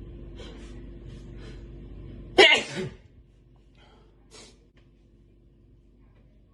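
A man sneezing once, loud and sudden, about two and a half seconds in, after a few short breathy intakes of breath; two short faint breaths follow.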